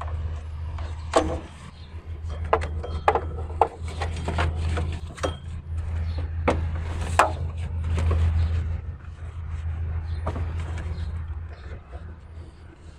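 Scattered metallic clicks and clanks of a 15 mm wrench working the belt tensioner pulley of a Chevrolet Aveo, loosening it to release the alternator belt, over a steady low hum.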